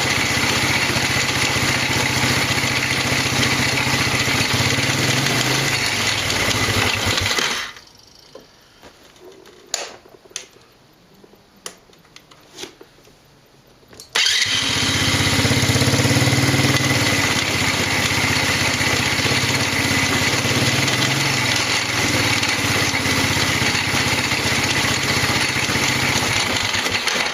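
LIFAN 110cc single-cylinder motorcycle engine running steadily, then cutting out about seven seconds in. A few sharp clicks and knocks follow during the pause, and about fourteen seconds in the engine catches again abruptly and runs steadily.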